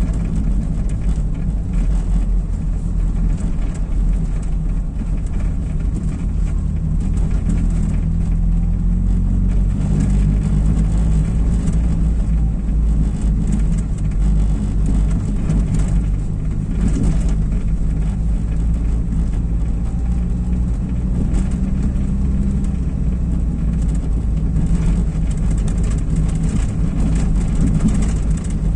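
Inside a moving car: the engine running and the tyres rumbling over brick paving, a steady low drone whose pitch drifts gently up and down with speed.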